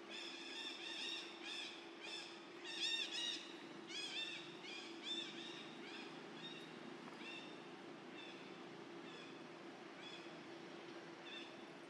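Baby monkey giving a run of short, high-pitched squealing calls, quick and close together at first, then slower and fainter after about six seconds.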